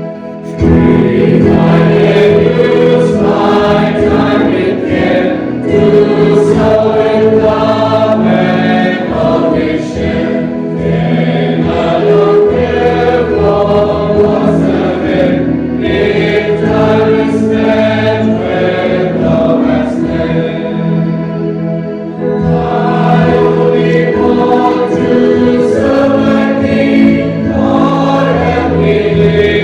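A choir singing a hymn, with a brief pause in the singing a little past two-thirds of the way through before it resumes.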